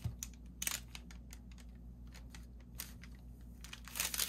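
Paper being handled while a glue stick is worked over it: scattered faint taps and rustles, then a louder rustle near the end as the paper is pressed flat by hand.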